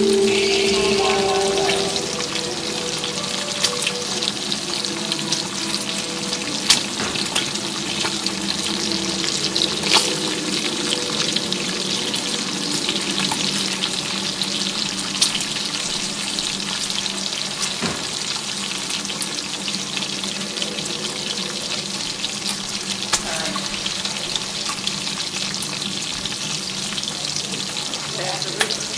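A steady crackling hiss like sizzling from a stainless steel pot, with scattered clicks and a few louder knocks as gloved hands stir in it and lift out a soaked cloth.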